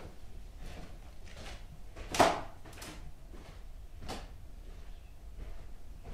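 Footsteps on a floor, roughly one step every 0.7 s, with one louder thud a little over two seconds in.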